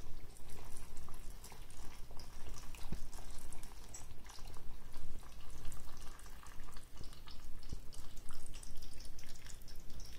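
Hot marinade poured from a saucepan in a thin, steady stream into a three-litre glass jar packed with cabbage and pepper, trickling and splashing unevenly onto the vegetables.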